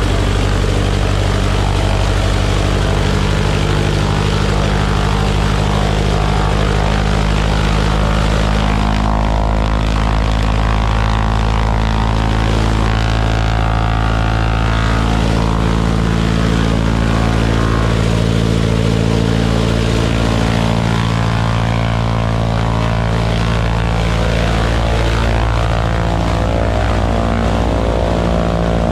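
Vultee BT-15's Wright R-975 nine-cylinder radial engine running steadily on a ground run, propeller turning.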